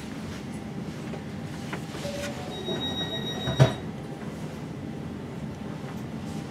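Steady rumble of a Westbahn passenger train carriage heard from inside, with a thin high squeal a little after two and a half seconds and a single sharp knock at about three and a half seconds.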